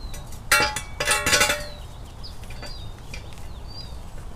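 Heavy metal clanks with a ringing tail, a few in quick succession about half a second to a second and a half in: a Toyota 4Runner e-locker rear axle housing being set down on steel jack stands. Faint bird chirps follow.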